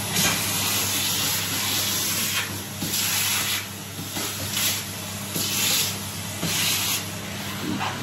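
Henry cylinder vacuum cleaner running with a steady motor hum, its suction hiss surging and fading irregularly as the nozzle is worked over the floor.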